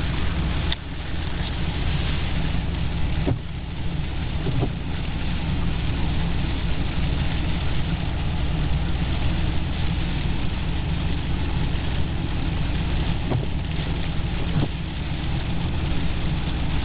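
A car running, heard from inside the cabin: a steady low engine and road rumble with a hiss above it, and a few faint clicks.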